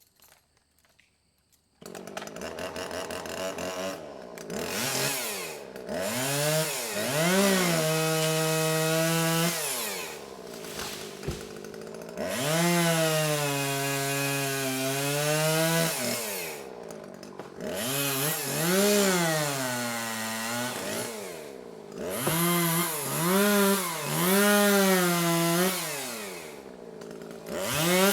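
Chainsaw coming in suddenly about two seconds in, then revving up and down over and over as it cuts small trees, holding high revs for a few seconds at a time between dips back toward idle.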